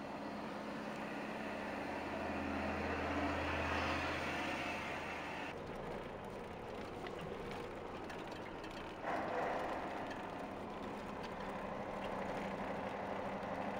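A truck engine running steadily with tyre and road noise, heard from inside a moving truck's cab on a snow-covered road. In the first few seconds a deeper rumble swells and fades as an oncoming six-wheel KAMAZ truck passes, and the sound changes abruptly twice further on.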